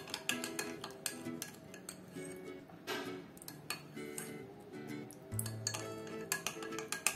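Metal spoon stirring a glass of milk, clinking repeatedly against the glass, over background music.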